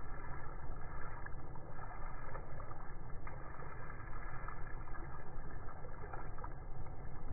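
Water spurting from a burst water balloon and running onto wet concrete, over a steady low rumble.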